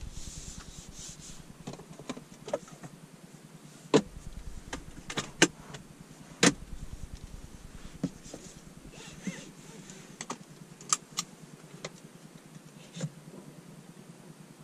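Scattered clicks and knocks from a hand handling the car's interior door trim and controls in a quiet cabin, with a soft hiss near the start.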